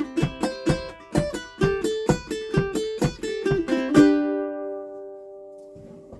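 Ukulele played clawhammer style: a brisk, even run of plucked and brushed notes that ends about four seconds in on a final chord, which rings on and slowly fades.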